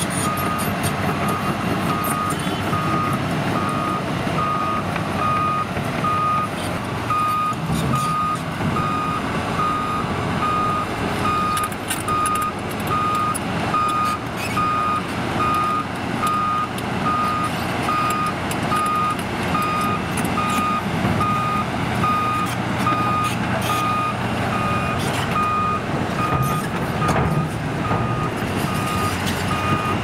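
Back-up alarm beeping steadily at one high pitch over the constant diesel drone of a Liebherr 946 crawler excavator working, with a few scattered knocks.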